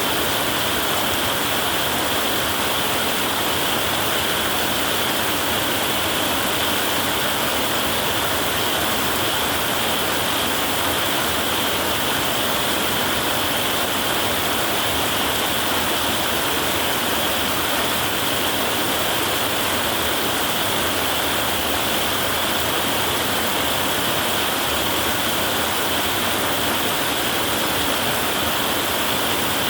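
Heavy rain drumming on a tin roof, a dense, unbroken hiss that stays at one level, with no thunder rumbling.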